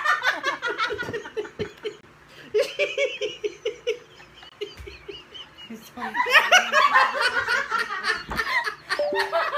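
A man and two women laughing hard together, with a few hand claps. The laughter eases about four seconds in, then swells again and gets louder about six seconds in.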